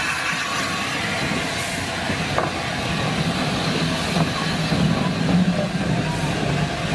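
Gresley A4 three-cylinder Pacific steam locomotive 60009 'Union of South Africa' moving slowly past at close range: a steady hiss of escaping steam, with a couple of sharp clanks from the wheels and motion. A low rumble builds from about three seconds in as the tender rolls by.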